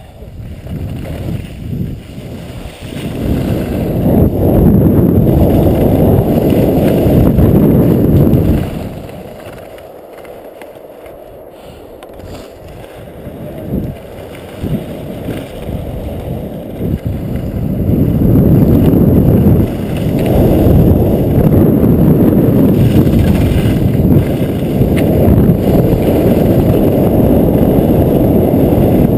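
Wind buffeting a GoPro action camera's microphone during a fast downhill run on snow, with the hiss of sliding over the groomed slope. The noise builds in the first few seconds, drops off for several seconds around the middle, then comes back loud.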